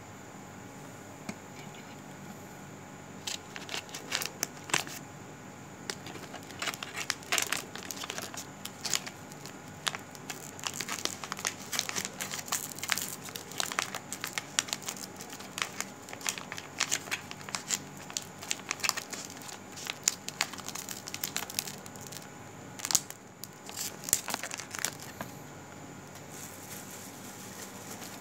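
Irregular crackling and crinkling clicks, sparse at first, then coming thick and fast before thinning out near the end, over a steady low hum.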